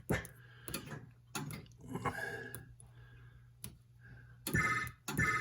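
Gottlieb System 80A pinball sound board playing electronic sound effects through a test speaker: a faint warbling tone about two seconds in and a louder, bright ringing warble near the end. Sharp clicks of switches being set come between them, over a steady low hum.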